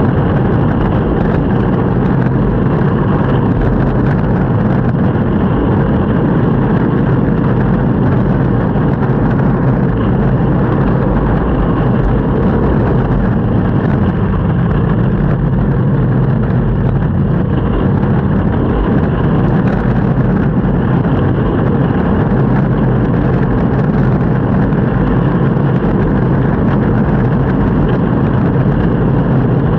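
Longboard wheels rolling over city pavement: a steady, loud, low rumble with no breaks.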